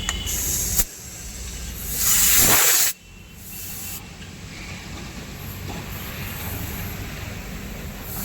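Compressed air hissing from an air line, filling a tubeless tyre to find the puncture: a short blast near the start, then a loud blast of about a second that cuts off suddenly.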